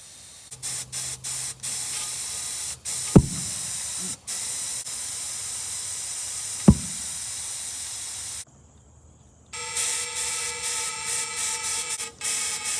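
Homemade pulse jet on its air assist: compressed air hissing, cut on and off in short stretches, with two single sharp pops about 3 and 7 seconds in as the jet fires once and fails to keep running. After a brief break near the end, the hiss comes back with a steady buzz of several tones.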